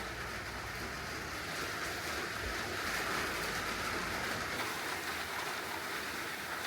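A steady rushing noise with no clear tone, swelling slightly through the middle.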